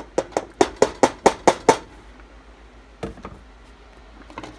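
About nine quick sharp knocks in under two seconds, then two more single knocks, as an upturned plastic bowl is rapped to shake grated carrot out into a steel soup pot.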